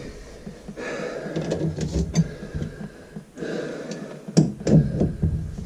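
Pliers clicking and scraping against a chrome sink P-trap slip nut as it is wrenched to break it loose, with rustling handling noise between a few sharp metal clicks.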